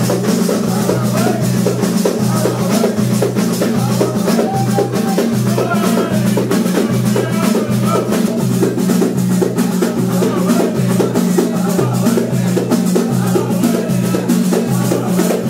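Moroccan folk troupe playing handheld frame drums, one of them with jingles, in a fast, steady rhythm while the men sing together.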